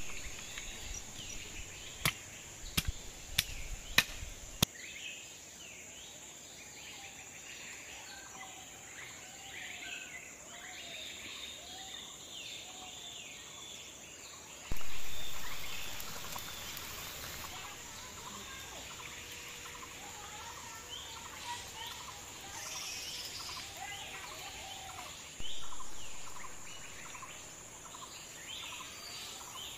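A heavy chopping blade strikes wood about five times, sharp single chops in the first few seconds. After that, birds chirp and sing steadily, broken twice, near the middle and again later, by a sudden loud hiss that dies away over a few seconds.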